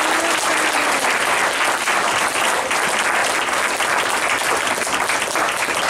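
A roomful of guests applauding: steady, dense clapping.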